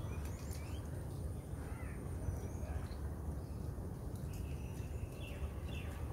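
Birds calling with short chirps that fall in pitch, scattered at first and coming thick and fast in the last two seconds, over a steady low rumble.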